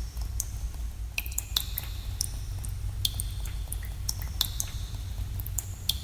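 Water drops falling into still water in a cave, an irregular series of sharp plinks, roughly two a second, each with a brief ringing tone. A steady low rumble runs underneath.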